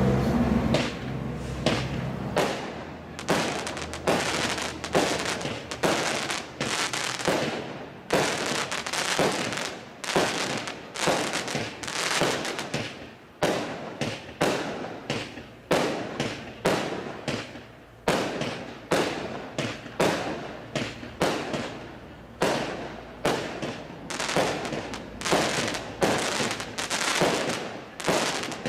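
FC20100-3 multi-shot fireworks cake (battery) firing shot after shot, about one or two a second, each bang followed by a short fading tail.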